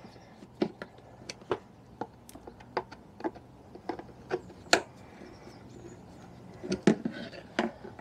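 Screwdriver working screws out of a scooter's plastic airbox cover: a run of irregular sharp clicks and ticks as the blade turns and the screws loosen, with a quicker cluster about seven seconds in.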